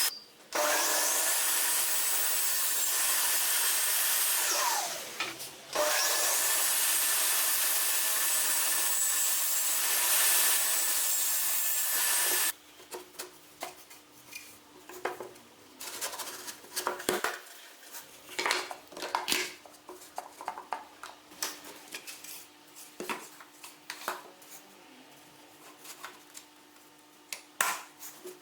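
A power tool running on wood, stopping briefly twice and winding back up, then switched off about twelve seconds in; after that, scattered knocks and scrapes of wood being handled.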